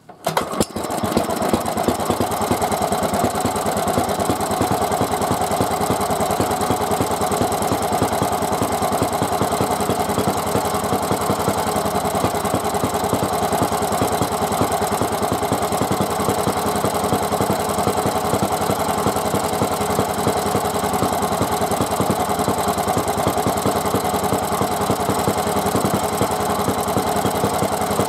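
Daikin type W52 kerosene tiller engine starting by hand: it catches about a second in and then runs steadily with an even, rapid firing beat.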